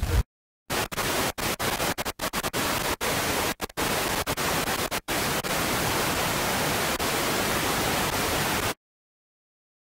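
Loud, even static-like hiss, the same at all pitches, broken by several brief cuts to dead silence before stopping abruptly about nine seconds in.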